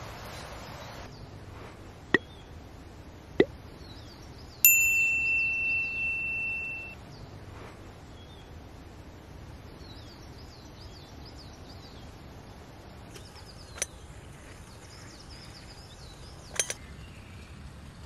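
A single clear metallic ding, struck once, that rings and fades over about two seconds, with a few sharp clicks before and after it. Small birds chirp faintly.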